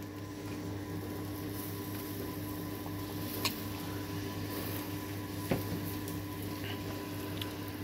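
Steady electric hum of the motor turning a whole-pig roasting spit over a charcoal trough, with two faint clicks midway.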